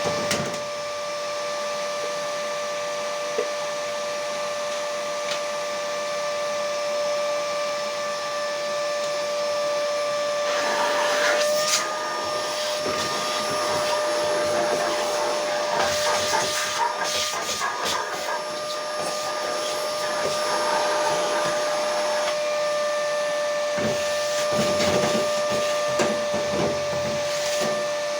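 An electric motor running steadily with a high whine and a hiss of moving air, joined from about ten seconds in by irregular rattling and clatter.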